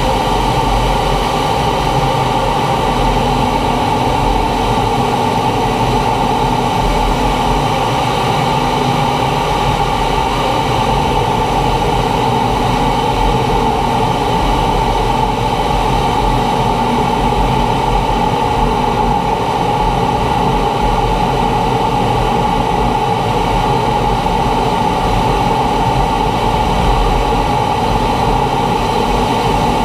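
T-45 Goshawk jet trainer in flight: its Rolls-Royce Adour turbofan and the rush of air over the airframe make a loud, steady noise with a constant mid-pitched hum.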